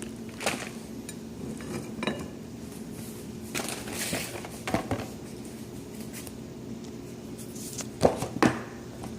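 Dishes and cutlery clinking and knocking as they are handled, with scattered short clatters and two louder knocks near the end, over a steady low hum.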